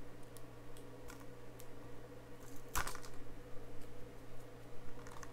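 Plastic Blu-ray case being handled: scattered light clicks and taps, with one sharper click nearly three seconds in. A faint steady hum runs underneath.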